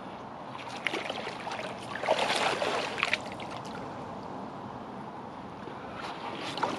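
Lake water splashing and sloshing in irregular short bursts, loudest about two to three seconds in, over a steady hiss.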